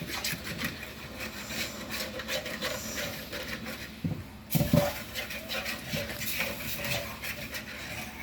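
Kitchen handling sounds: irregular small clicks and knocks of cookware and utensils being moved about, with one louder knock about four and a half seconds in.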